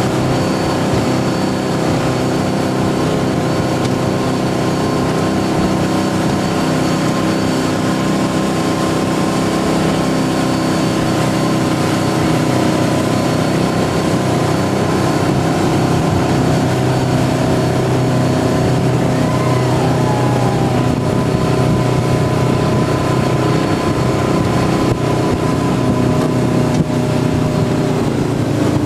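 Boat's 455 Rocket V8 inboard engine running steadily at constant speed over a steady hiss, its pitch easing slightly near the end.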